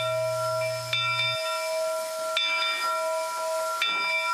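Steam locomotive bell on Polson No. 70 ringing, struck about every one and a half seconds with the tone carrying on between strikes, over a steady hiss of steam.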